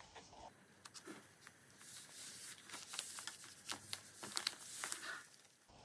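Paper rustling and crinkling as a glued sheet is laid onto a journal page and smoothed flat by hand, with scattered light clicks and taps.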